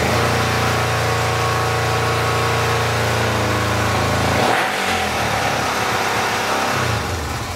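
Honda CB350 parallel-twin engine running on a test stand, a steady even note; a little past halfway its note shifts and briefly dips, then it runs on and starts to die away near the end as it is shut off.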